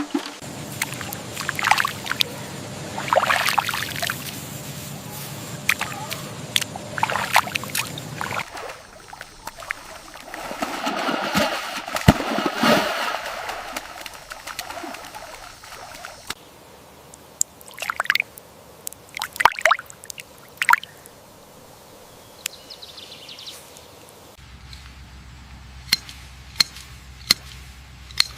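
Water sloshing, pouring and trickling, with scattered sharp clicks and knocks. The sound changes abruptly about every eight seconds.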